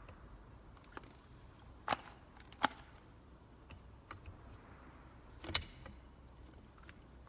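A few sharp clicks and knocks of tricycle footrest parts being handled and fitted into place, the loudest about two and a half seconds in.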